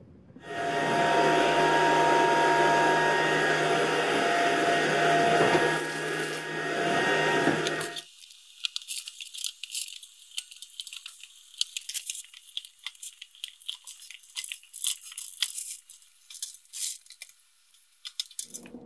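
A loud, steady machine whir with a hum in it starts about half a second in and cuts off abruptly at about eight seconds. After that come light metallic clicks and rattles of black wire grid pet-fence panels being handled and fitted together.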